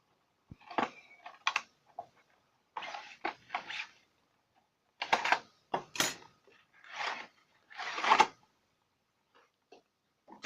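Irregular rustling and clicking as the parts of a soldering iron kit are handled and unpacked from their packaging, in short bursts every second or so.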